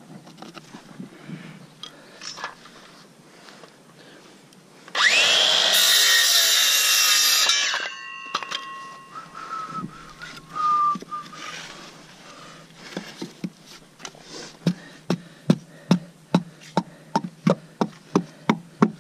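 A power saw runs for about three seconds, rising in pitch as it spins up and ringing down as it stops. Later come steady hammer blows, about two a second.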